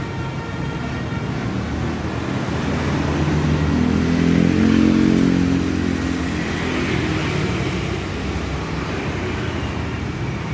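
Bus engine running as the vehicle goes by, building to its loudest about five seconds in and then fading off.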